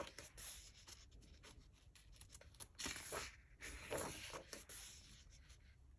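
Faint rustling of thick, smooth coloring-book paper as hands slide over the pages and turn a page over, with the loudest rustles about three to four seconds in.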